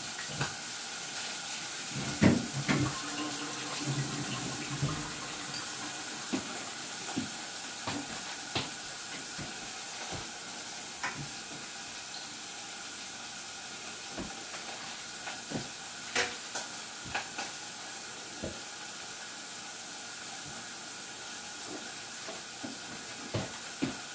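Steak frying in a pan: a steady sizzling hiss with scattered pops and crackles.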